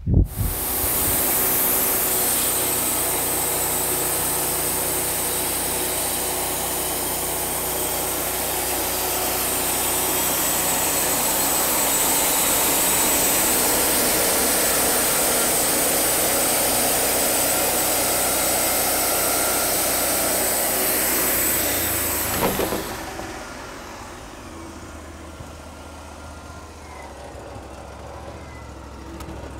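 Wood-Mizer portable bandsaw sawmill sawing a board off a log: the engine runs under load while the band blade hisses steadily through the wood. About twenty-two seconds in the cut ends and the engine drops to a quieter idle.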